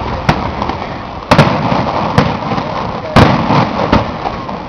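Aerial firework shells bursting overhead: a string of about seven sharp bangs, each followed by a rolling echo, the loudest about a second and a half in and again about three seconds in.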